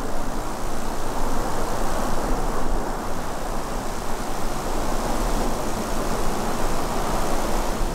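Steady rushing outdoor noise with a low rumble underneath and no single event standing out.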